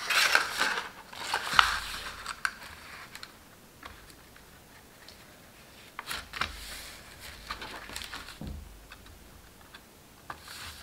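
Cardstock being handled: sliding, rustling and scraping on a cutting mat as the paper box panels are moved, folded over and pressed flat, in a few short spells with light taps and quieter stretches between.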